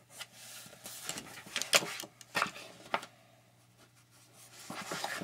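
Handling noise from a clear plastic curve ruler and a pencil on a pad of graph paper: a few sharp clicks and taps spaced roughly half a second to a second apart, then rubbing and scratching near the end as the pencil draws along the paper.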